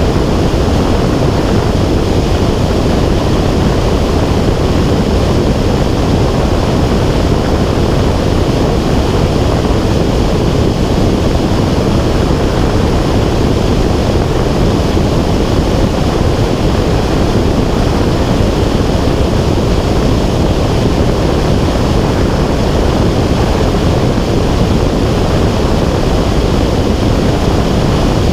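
Steady wind noise buffeting the microphone of an airborne camera: an unbroken, loud rush with most of its weight low down and no engine tone or other events in it.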